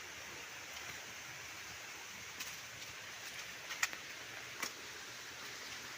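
Steady rushing hiss of flowing stream water, with a few sharp clicks in the second half.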